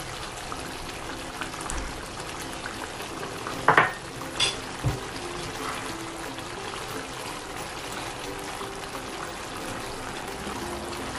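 Wooden spoon stirring rice through a pot of simmering banga (palm-nut) sauce: wet stirring and bubbling, with a few sharp knocks of the spoon against the pot about four seconds in.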